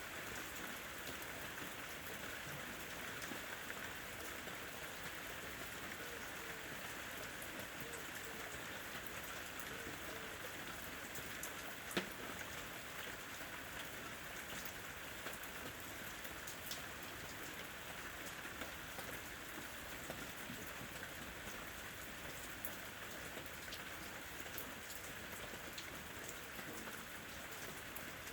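Steady rain falling: an even hiss with scattered single drops ticking through it, and one sharper drop hit about twelve seconds in.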